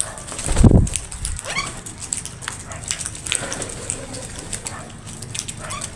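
Crows squabbling over food: short rising calls amid scattered sharp clicks and scuffling, with a loud low thump or blast about half a second in.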